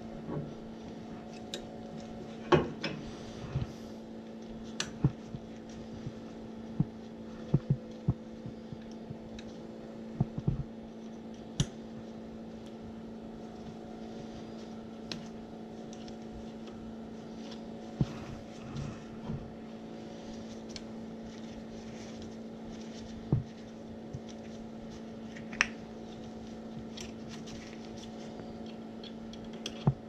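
Scattered sharp clicks and light knocks of hand tools against the metal burner and blower assembly of a Munchkin boiler, over a steady low hum.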